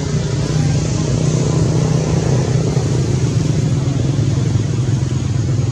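A motor engine running steadily: a continuous low drone with an even rushing noise over it.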